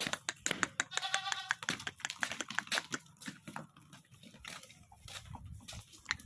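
A goat bleats once, a short call about a second in, over a scatter of small clicks and taps.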